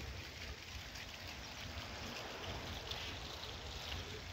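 Water from a small pond fountain splashing and trickling steadily, with a low steady rumble underneath.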